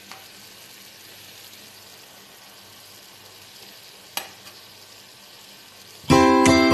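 Chopped vegetables and meat sizzling softly in a frying pan while being stirred with a metal spoon, with one sharp clink of the spoon on the pan about four seconds in. Loud music with plucked string notes comes in near the end.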